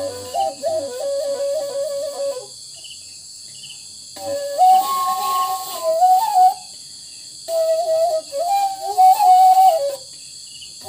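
A long bamboo side-blown flute (Tripuri sumui) playing a melody in three phrases of two to three seconds each, with breath pauses between. The tune moves in small steps with quick ornamental flicks.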